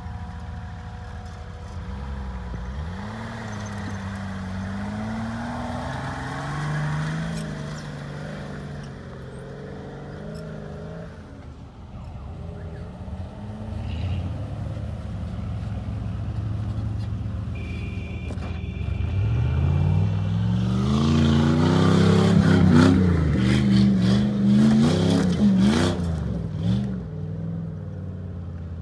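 Engines of off-road 4x4 SUVs revving as they climb a rough dirt trail, the revs rising and falling again and again. The revving is loudest and most frequent about two-thirds of the way through.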